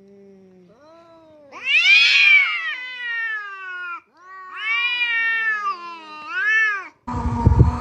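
A cat meowing twice in long, drawn-out calls that rise and then fall in pitch, the second wavering near its end. Near the end a sudden burst of noise with knocks cuts in.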